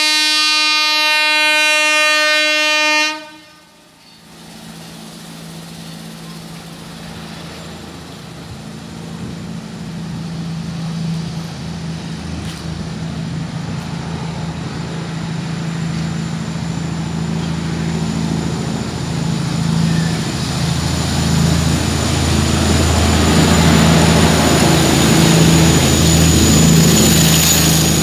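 WAP-4 electric locomotive's horn sounding one long blast that stops about three seconds in. Then the approaching express train: a low, steady rumble and hum that grows louder as the locomotive and coaches run through the station at speed.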